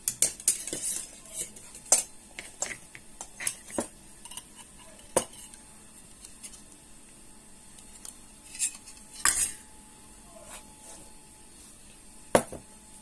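Metal spoon clicking and tapping against a mixing bowl while curd is spooned onto marinating chicken: a quick run of sharp clicks over the first few seconds, then a few scattered taps.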